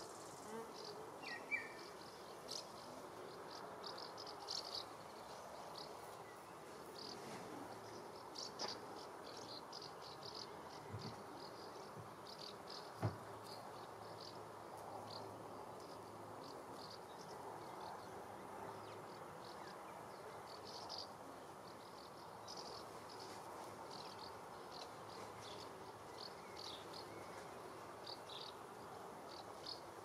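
Bumblebees buzzing faintly as they forage on lavender flowers, with frequent short high chirps throughout and one sharp click about thirteen seconds in.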